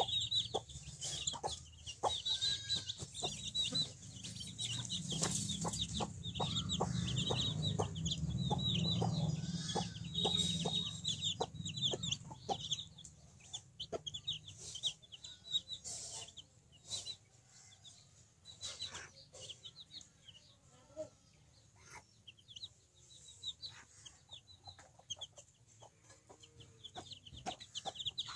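Chicks cheeping rapidly and continuously in high, short peeps, with a mother hen's clucks among them. A low rumble runs under the first half and fades out a little under halfway through.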